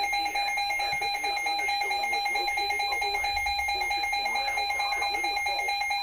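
Weather alert radio's alarm going off: a steady tone with a second, higher tone alternating rapidly in pitch over it. It signals an incoming emergency alert broadcast. Faint voices run underneath.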